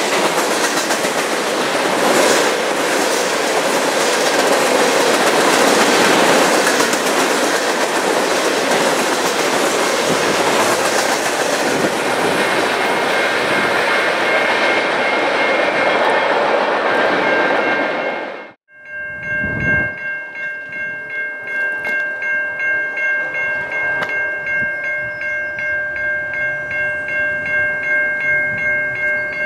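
Freight train of tank cars rolling past, a steady rumble and clatter of wheels on rail. About two-thirds of the way in the sound cuts off abruptly and gives way to a level-crossing warning bell ringing, pulsing about one and a half times a second.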